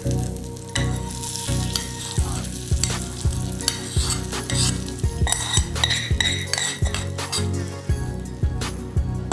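Hot ghee tadka sizzling as it is scraped out of a small steel pan onto dal with a metal spoon. Many sharp clicks and scrapes of the spoon against the pan run through the sizzle.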